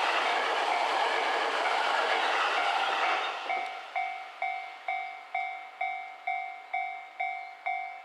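Unpowered Seibu 30000 series electric-train cars, hauled on a delivery transfer, rolling past with wheels clattering over the rail joints; the sound drops away about three seconds in as the last car clears. A level-crossing warning bell rings on, about two strokes a second, each stroke fading.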